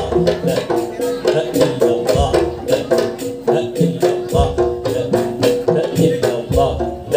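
Traditional percussion-led music of the kind that accompanies Madurese pencak silat: quick drum strokes under a repeating pitched melody, with a deep low beat about every two seconds.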